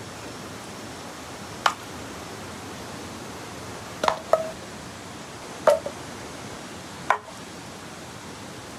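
A hand-held blade chopping into mossy firewood logs: five sharp chops, two in quick succession about four seconds in.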